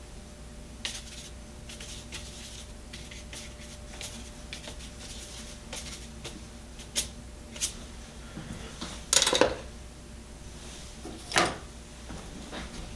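Faint taps and light scratching of a paintbrush working on watercolor paper on a tabletop easel, with two louder handling noises about nine and eleven seconds in.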